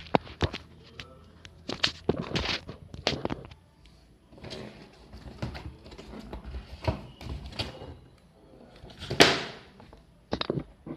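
Cardboard Adidas shoebox being handled and opened: repeated knocks and taps on the box and scraping as the lid is worked loose. A loud swish about nine seconds in comes as the lid comes off.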